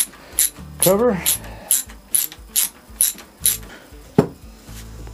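Ratchet wrench clicking in a steady rhythm of about two to three clicks a second while the oil pump cover nuts are backed off a VW 1200 engine. The clicking stops about three and a half seconds in, and a single sharp knock follows about a second later.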